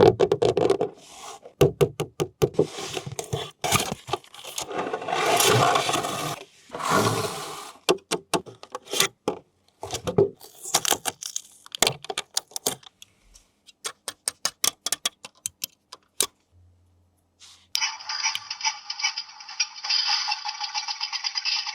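Toy packaging being handled during an unboxing: cardboard and plastic scraping in long swells, with many sharp clicks and rattles. In the last few seconds a steady buzz with a fast, even pulse starts up.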